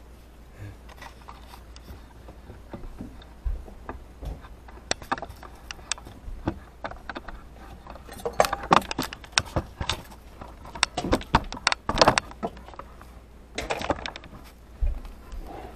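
Repeated clinking and clattering of small hard objects being handled. It comes in scattered clicks at first and grows into dense bursts of clatter in the second half, over a steady low hum.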